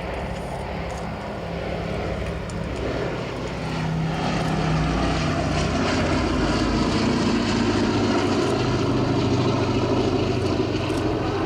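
Boeing B-17G Flying Fortress's four Wright Cyclone radial piston engines droning as the bomber flies past, growing louder over the first few seconds and then holding, the drone sinking slightly in pitch.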